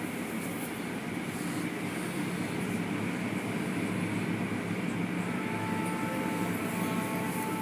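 Steady rumbling noise of an automatic tunnel car wash, heard from inside the car. A faint, thin, steady high tone joins about five seconds in.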